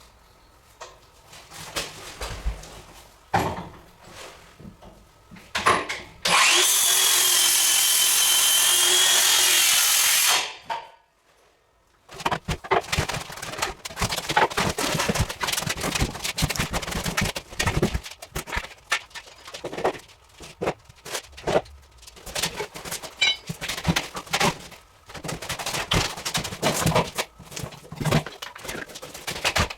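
A power tool runs loud and steady for about four seconds, about six seconds in, with a wavering high whine. Before and after it come irregular knocks, clicks and rattles of hand work on materials.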